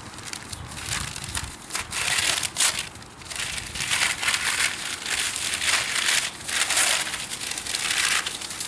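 Wrapping crinkling and rustling in irregular bursts as it is pulled and unwound off a bow by hand.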